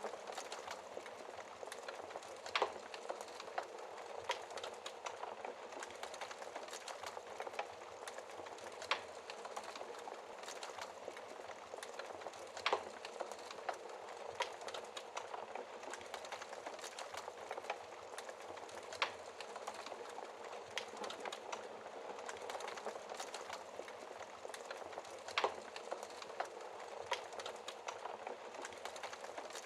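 A fire burning behind a glass shield: a steady hiss of flames with frequent small crackles and a sharp, louder pop every few seconds.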